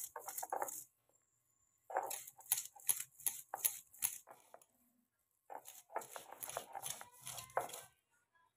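A stone roller crushing and grinding garlic cloves on a stone slab (sil-nora): quick grinding strokes, about three or four a second, in three spells with short pauses between them.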